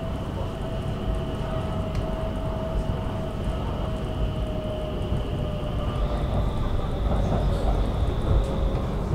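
Stockholm metro train heard from inside the carriage, running with a steady low rumble and electric motor whine. The lower whine slowly falls in pitch as the train slows for the next station, and a higher whine steps up in pitch about six seconds in.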